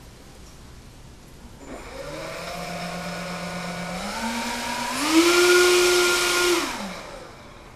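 Radio-controlled model airliner's motors whining up in steps of throttle from about two seconds in, rising in pitch twice, running at their loudest with a rush of air for about a second and a half, then winding down near the end.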